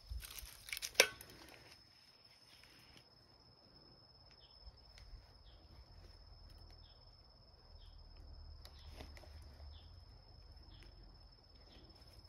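Quiet garden ambience: a steady thin high-pitched tone with faint short chirps repeating roughly once a second, typical of insects. A single sharp click sounds about a second in.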